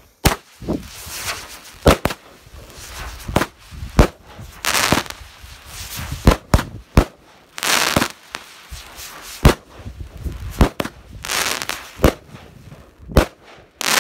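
Atom Smasher 200-gram consumer firework cake firing: sharp shots about every second, mixed with longer bursts of crackle as the breaks open into glittering, crackling stars.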